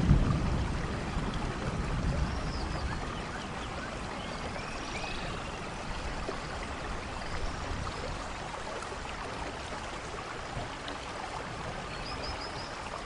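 A steady rushing noise, like flowing water, with several faint, short, high chirps scattered through it.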